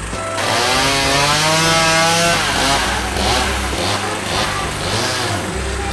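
A small petrol engine like a mower's or string trimmer's starts buzzing about half a second in, its pitch wavering up and down as it revs.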